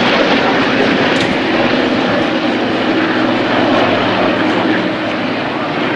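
Propeller airplane's piston engine running loud and steady, easing off slightly near the end.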